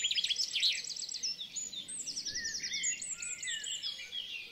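Small songbirds chirping and trilling over one another in fast runs of short high notes, thinning out near the end.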